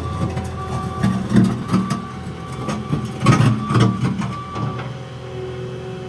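Caterpillar 236 skid steer working dirt: its diesel engine runs steadily under load with a whine from the hydraulics. Irregular clanks and knocks come from the bucket and loader arms, heaviest about a second in and again past the middle, as the bucket is lifted and tilted.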